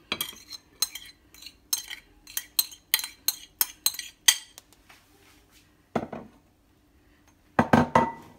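Metal spoon clinking and scraping against a ceramic plate and glass bowl as chopped boiled egg is knocked off into the bowl, about three sharp clinks a second for the first four seconds. A few heavier knocks follow near the end.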